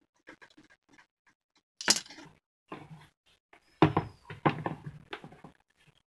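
Knocks and rattles from a plastic table fan and its wire guard being handled: faint ticks at first, a sharp knock about two seconds in, then a run of irregular knocks and rattles.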